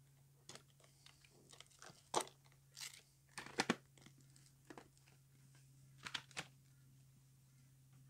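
Hands working at a motorcycle helmet's chin strap and strap-on camera mount held by Scotch heavy-duty fasteners: scattered plastic clicks and scratchy rasps as the mount is taken off, the busiest about two, three and a half and six seconds in. A steady low hum runs underneath.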